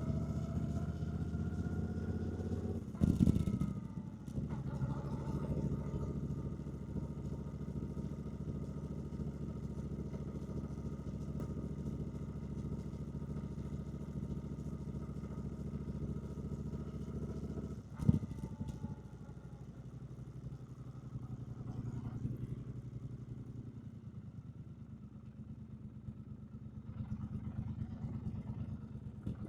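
2024 Triumph Bonneville T120's 1200 cc parallel-twin engine running under way, rising in pitch at the start, with a brief loud burst about three seconds in. A sharp knock about eighteen seconds in, then the engine runs lower and quieter before picking up again near the end.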